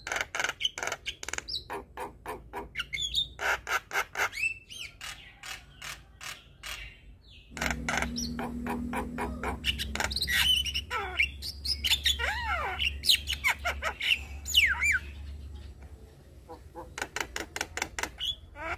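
Javan mynas calling: fast runs of short, harsh repeated notes mixed with whistled notes that slide up and down. About seven and a half seconds in, a low steady hum starts under the calls.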